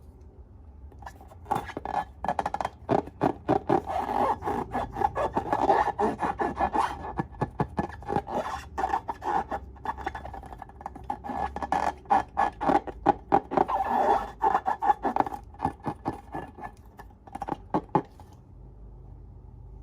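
Slime being squeezed and worked by hand, giving dense, rapid sticky crackles and clicks. It starts about a second in and stops near the end.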